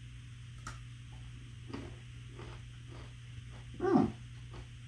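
A man chewing a soft peanut and black sesame bar, with faint mouth clicks over a low steady hum; about four seconds in, a dog gives one short, high whine.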